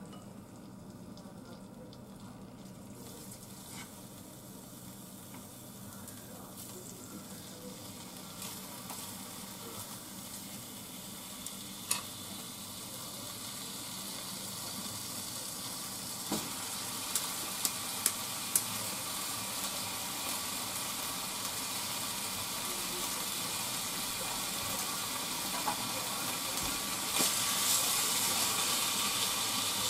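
Meat slices sizzling in a frying pan, the sizzle slowly growing louder as the pan heats. A few sharp clicks of chopsticks against the pan come through, and near the end cabbage goes into the pan and the frying gets louder.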